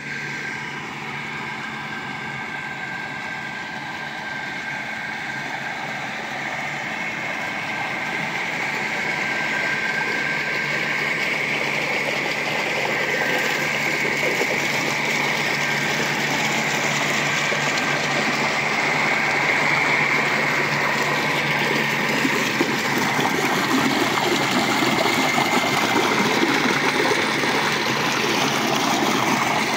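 A 75-year-old pressure pump and the small flywheel engine driving it, running steadily with a constant hum. Water from the pump's outlet gushes into a tank, and the sound grows louder over the second half.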